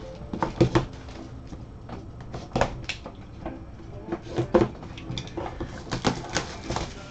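Plastic shrink wrap crackling and being peeled off a sealed cardboard box of trading cards, with irregular sharp crinkles and light knocks as the box is turned in gloved hands.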